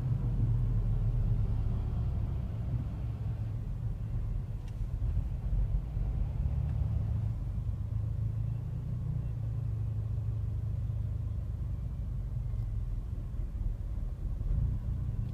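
Mercedes-AMG CLA45's turbocharged 2.0-litre four-cylinder idling roughly while stationary: a low, uneven rumble, struggling as if about to stall. The fault is a turbo failure.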